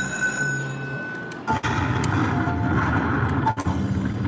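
Slot machine's electronic game sounds: a steady high tone over a repeating low pattern. About a second and a half in, these break off abruptly into about two seconds of louder, rough noise with a few short beeps. Near the end the noise cuts back to the machine's low repeating pattern.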